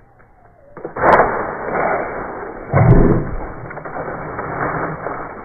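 Slowed-down, deep rustling of dry fallen leaves as a Japanese skink bolts from a pipe into the leaf litter. A sharp click comes about a second in and a heavier low thump near the three-second mark.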